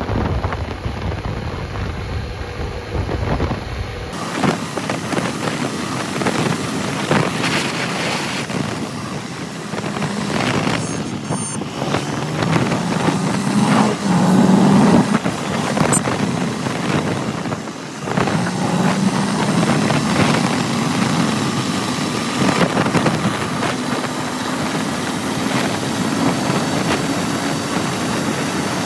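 TVS Apache RTR 160 4V motorcycle's single-cylinder engine running at highway speed, heard from the handlebars with steady wind and road noise over it. The sound changes abruptly about four seconds in.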